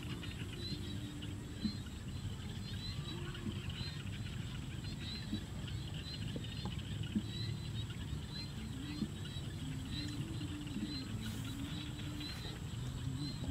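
Outdoor ambience: a steady low rushing noise, with a high chirp repeating every half second or so over a faint steady high whine.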